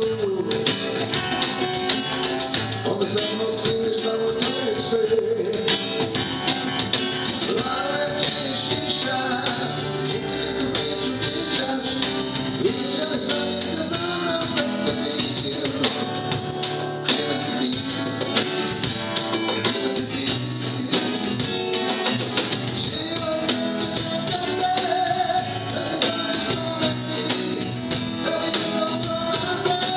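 A man singing a ballad into a microphone over a backing track with guitar and drums.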